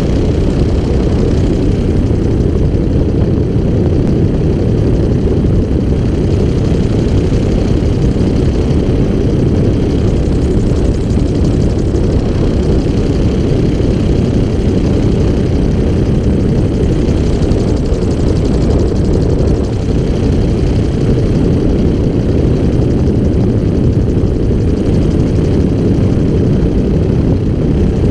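Gyrocopter in level flight: its engine and pusher propeller drone steadily, mixed with a heavy low rush of airflow, with no change in pitch or loudness.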